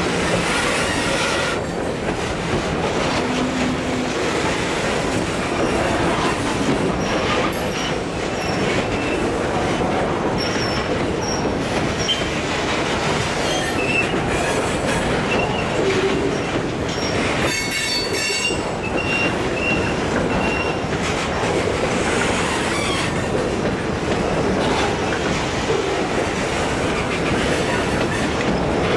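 Freight train boxcars rolling past close by: the steady rumble and clatter of steel wheels over the rails. High wheel squeals come and go, with a burst of several squealing tones together about eighteen seconds in.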